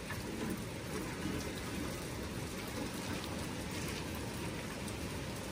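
Light rain falling as a steady, quiet hiss, with no distinct knocks or other events.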